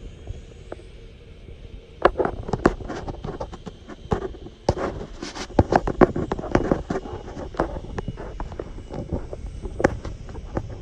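Irregular clicks, taps and scuffs close to the microphone, dense from about two seconds in until near the end, over a steady low wind rumble.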